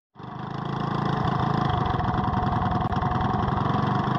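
Small engine running at a steady speed with an even firing beat, fading in over the first second.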